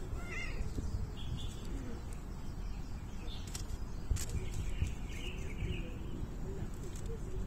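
Small birds chirping in short calls, several times, over a low steady rumble, with a couple of sharp clicks about halfway through.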